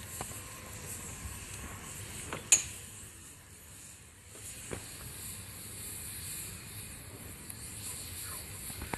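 Wood campfire of split logs burning with a steady hiss and a few sharp crackling pops. The loudest pop comes about two and a half seconds in.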